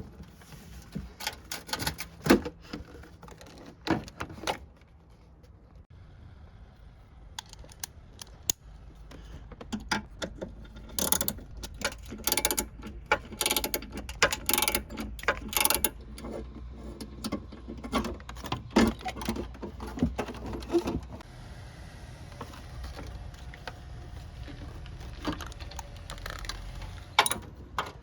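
Hand tools clicking and clinking irregularly, with clusters of quick clicks in the middle stretch.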